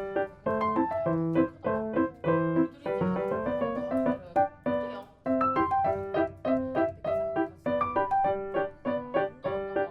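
Background music: a light piano melody of short, evenly paced notes.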